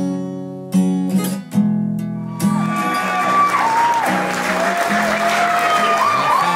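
Strummed acoustic guitar music, then about two and a half seconds in a room full of wedding guests breaks into applause and cheering.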